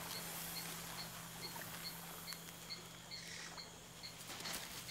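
Faint night-time rainforest ambience: a small high chirp repeating steadily about twice a second, with a few soft scattered ticks over a low steady hum.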